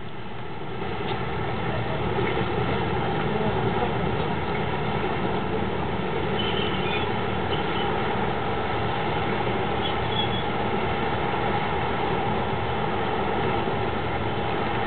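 English Electric DE-class diesel-electric locomotive's engine running steadily. It grows louder over the first couple of seconds as the locomotive comes closer, then holds level.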